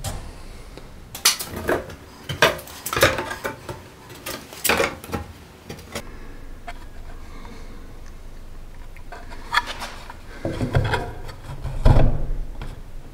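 Clicks, clatter and knocks of a blue plastic electrical outlet box being handled and set against a wooden 2x4 stud: a run of sharp knocks in the first few seconds, a quieter stretch, then louder knocks and a thump near the end as the box is pressed to the stud.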